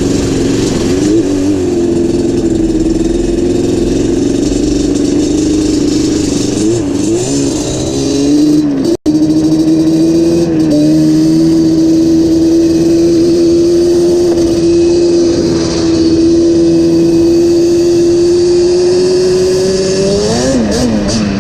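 Yamaha Banshee 350's twin-cylinder two-stroke engine running at a steady pitch while riding, with the revs rising and falling briefly about seven seconds in and again near the end. The sound cuts out for an instant about nine seconds in.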